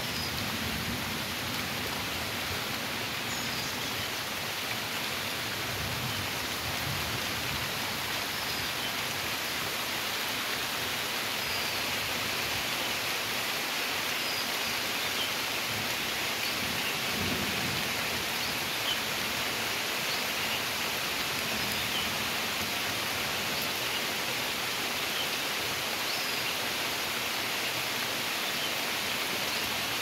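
Steady rain falling on open water, an even hiss of countless drops hitting the surface.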